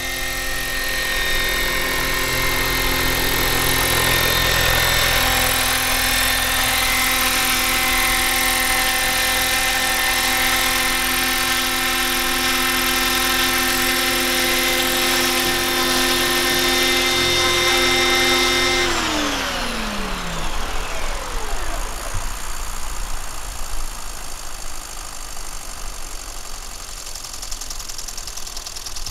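Electric 1:7-scale Bell 230 RC helicopter on the ground with its rotor turning, the motor giving a steady whine. About 19 seconds in the power is cut, and the whine glides down in pitch over a second or two as the rotor spins down. Uneven background noise remains after it stops.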